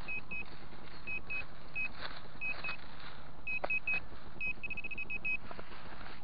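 Handheld metal-detecting pinpointer probe beeping as it is worked through loose soil and leaf litter: short high beeps, in ones and twos, then a quick run of beeps about five seconds in as it closes on a metal target.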